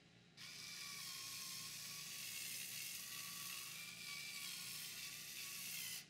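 Cordless electric screwdriver whirring as it drives the screws that hold a radiator to the top panel of a PC case. It starts abruptly just after the beginning, dips briefly about four seconds in, and cuts off abruptly near the end.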